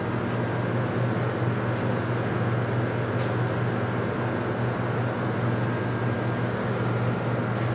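Steady low hum over an even background hiss, with one faint click about three seconds in.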